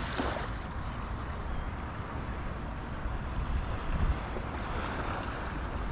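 Small surf washing onto a sandy beach in swells, with wind rumbling on the microphone.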